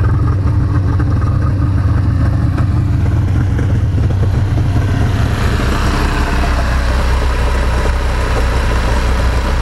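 Yamaha LS2000 jet boat's twin GP1200 two-stroke engines idling steadily out of the water while their jet pumps are flushed with a garden hose. About five seconds in the sound becomes closer and brighter, heard over the open engine compartment.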